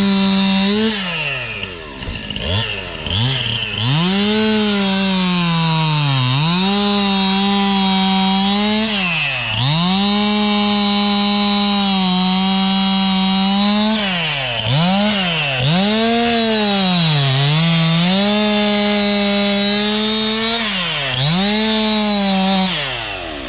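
Chainsaw cutting into a fallen tree at full throttle, its high engine note sagging several times as the chain bites into the wood and then climbing back.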